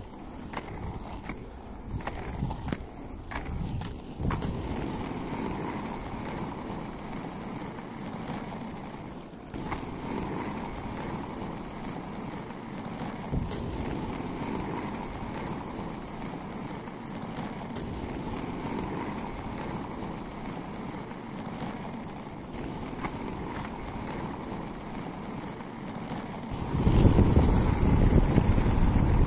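Quad roller skate wheels rolling over rough, worn asphalt, a steady gritty rumble with a few knocks early on. Near the end a much louder low rumble takes over.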